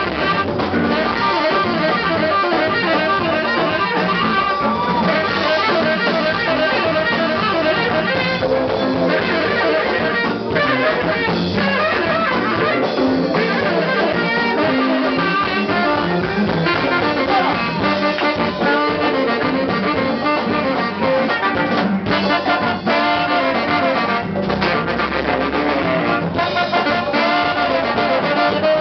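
A live band playing, with brass horn lines, trombone among them, over guitar, keys, bass and percussion with a steady beat.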